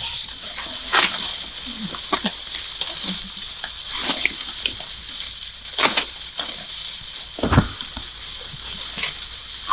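Corn plants being handled during a hand harvest: irregular rustles, snaps and crackles with a heavier thump about three-quarters of the way through, over a steady high-pitched drone.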